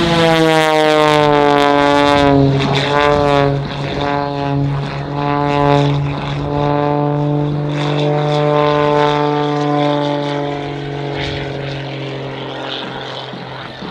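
Skip Stewart's modified Pitts biplane, its piston engine and propeller running at high power in a steady drone, loudest at first and slowly fading toward the end.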